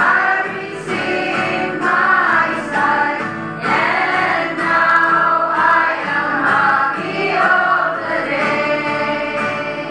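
A women's church choir singing a hymn together in unison, reading from hymnals.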